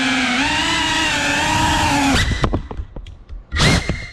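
Cinewoop FPV drone's motors and ducted propellers whining steadily, the pitch wavering with throttle, then cutting off abruptly about two seconds in as the drone crashes. Clattering knocks follow as it tumbles, with a loud brief clatter near the end.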